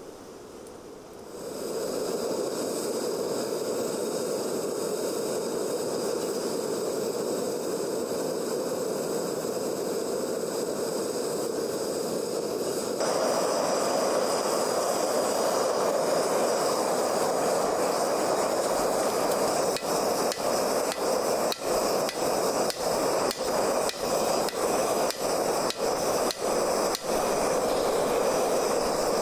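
Steady rushing noise of a Bernzomatic MAPP gas torch burning into a lined mini keg forge, starting about a second and a half in. It gets louder and fuller about halfway through and is broken by a run of brief dips near the end.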